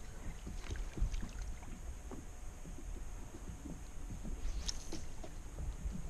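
Water lapping and small knocks against a kayak's plastic hull, over a steady low rumble, with one sharper click about three-quarters of the way through.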